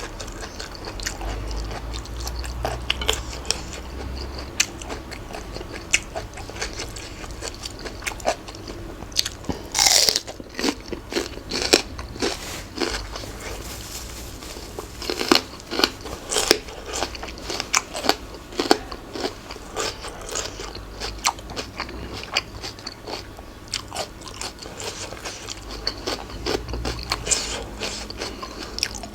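A person chewing and crunching food close to the microphone: a run of crisp, irregular crunching bites, the loudest one about ten seconds in.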